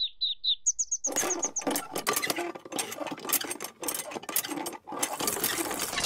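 Ducklings peeping in a quick string of short high chirps. About a second in, a dense rattling, splashing noise takes over as a toy hand pump is worked and water runs from its spout into a small pond, and the peeping comes back near the end.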